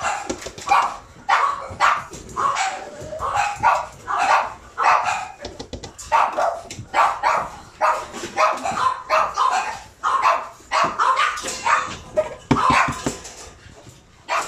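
Boston terrier puppy barking over and over, short barks coming a few per second with only brief gaps, easing off briefly near the end.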